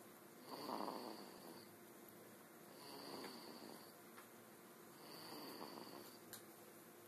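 Soft, slow snoring: three snores about a second long each, roughly two and a half seconds apart, each with a thin high whistle over it; the first is the loudest.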